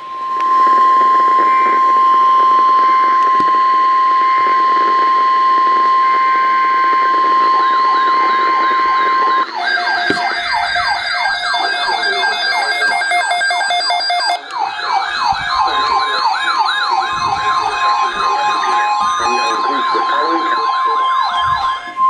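NOAA Weather Radio's steady 1050 Hz warning alarm tone for about nine seconds. After about seven seconds several weather radio receivers join in with warbling siren alarms that rise and fall several times a second and overlap one another. The steady tone comes back in near the end.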